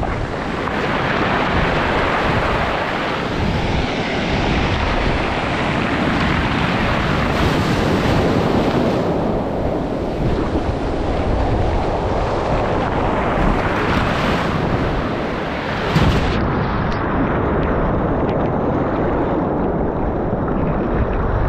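Sea surf and wind buffeting the microphone: a steady, loud rushing noise. About sixteen seconds in the high hiss drops out and the noise turns duller.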